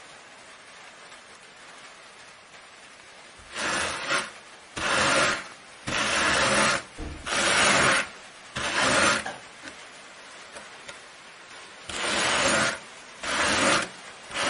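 Wool being worked between hand cards (wooden carders with wire teeth), carding and blending dyed colours together. It is heard as a series of rasping strokes: five in a row starting a few seconds in, a short pause, then three more near the end.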